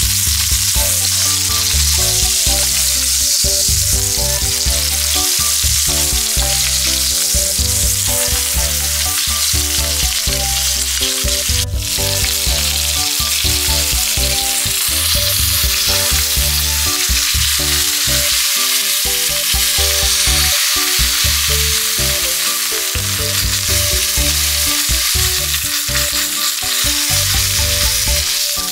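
Steak sizzling loudly as it fries in hot fat and pan juices in a nonstick frying pan, a steady dense crackle, with one sharp click about twelve seconds in.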